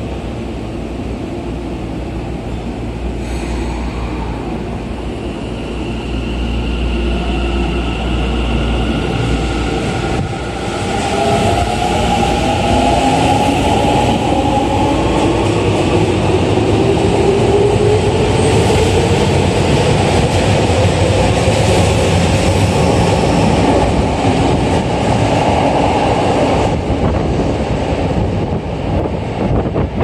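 Tokyo Metro 10000 series subway train pulling out of the station. A few seconds in, its motors start a whine that climbs steadily in pitch as it gathers speed, over a loud rumble of wheels on rail. The noise drops away near the end as the last car enters the tunnel.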